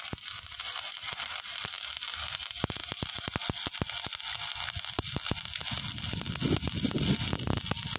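Stick arc welding on rusty steel: the electrode's arc sizzling and crackling steadily, with many sharp spatter pops.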